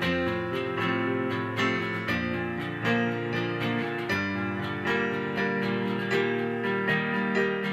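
Instrumental passage of a song, with no singing: a Taylor acoustic guitar picked and strummed over held piano chords played on a keyboard.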